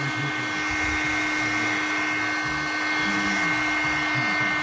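Electric hot-air blower running steadily, a rush of air with a steady whine and hum, reheating and softening shoe-polish wax on a black marble clock case.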